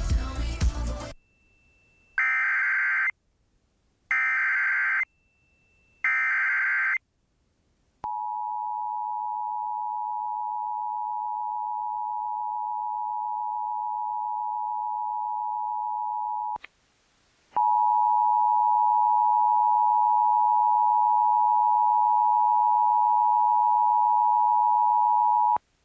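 Emergency Alert System header and attention tones from a Sage ENDEC: after a brief loud burst at the start, three bursts of screechy digital data about a second each (the SAME header announcing a new alert), then the steady two-tone EAS attention signal held for about eight and a half seconds. After a short break a second, buzzier steady alert tone follows for about eight seconds.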